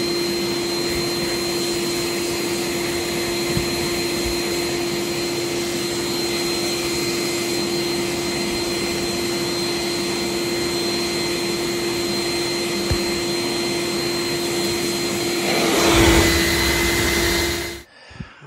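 Steady drone of a running electric motor with a constant high whine. It swells louder briefly near the end, then cuts off abruptly.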